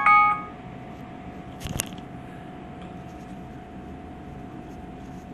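Smartwatch speaker playing a short electronic ringtone of a few pitched notes, which cuts off about half a second in. A brief click comes near the two-second mark, over a faint steady whine.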